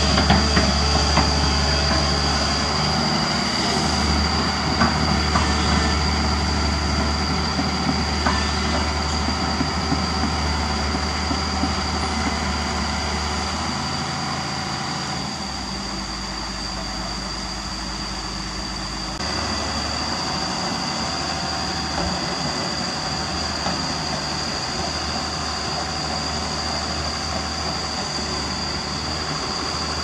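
Doosan DX225LC crawler excavator working, its diesel engine running steadily and changing note a few times as the hydraulics load it. There are a few light knocks from the bucket in the soil in the first seconds.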